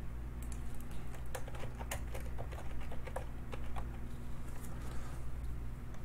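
Typing on a computer keyboard: an uneven run of key clicks that stops about five seconds in.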